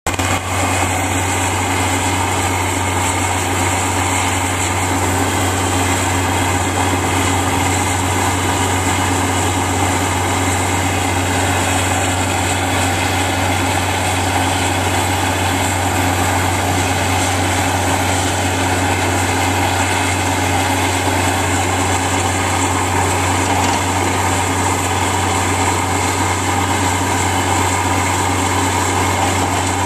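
2007 Versa V-2000NG water well drill rig's engine running at a steady speed, a loud constant drone with no revving.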